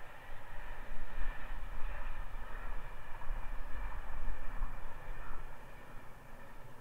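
Wind buffeting the microphone in uneven gusts, over a steady outdoor hiss.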